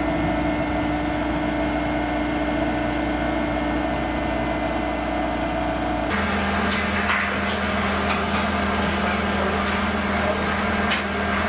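Steady hum of a running engine from flightline ground equipment, with a constant whine on top. About six seconds in it switches abruptly to a different, lower engine drone with a few light clinks.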